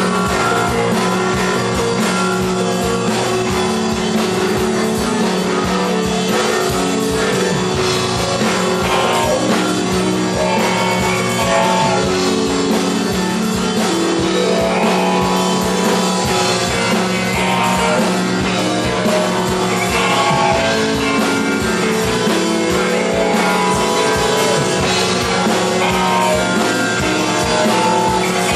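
Italian art-rock band playing live: loud, dense rock with guitar over fast, steady drumming and a held low note.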